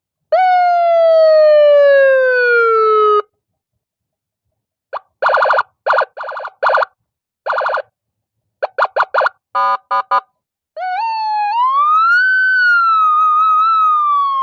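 Senken 60-watt electronic siren module sounding its tones: a falling tone of about three seconds that cuts off suddenly, then a run of short blasts and a quicker string of beeps. About eleven seconds in, a wail starts that rises in steps and then begins to fall.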